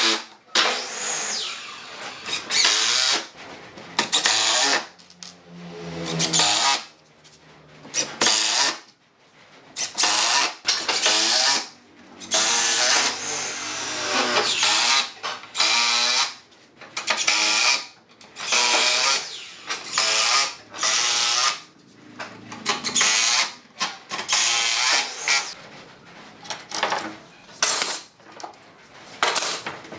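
Cordless Makita drill driving wood screws into a pine frame, in repeated bursts of a second or two with short pauses between.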